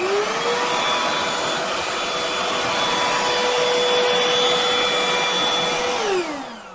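Hoover H-FREE 100 cordless stick vacuum running, its motor whine rising as it spins up at the start, then holding steady. About six seconds in it is switched off and winds down with a falling whine.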